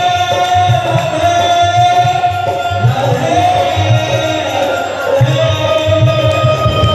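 A man singing a devotional song into a microphone in long held notes, with rhythmic drum accompaniment.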